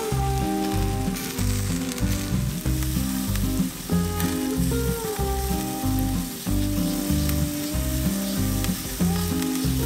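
Butter marinade and chicken fat sizzling on whole chickens roasting over a charcoal grill. Background music with a repeating bass beat and gliding notes plays throughout.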